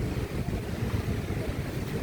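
Wind buffeting the microphone: a low, gusty rumble with no steady tone.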